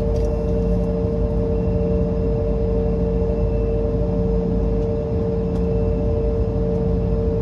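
Steady cabin drone inside an Embraer E175 jet on the ground during deicing: a low rumble with two steady whining tones held throughout, and a few faint ticks.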